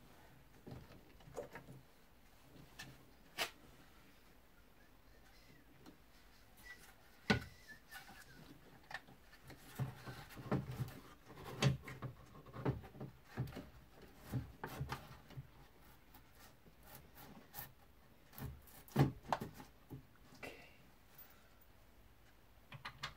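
Hands and parts working inside a car door's stripped inner panel during a window regulator repair: scattered metallic and plastic clicks, knocks and rubbing, busiest in the middle, with a sharp knock in the last third.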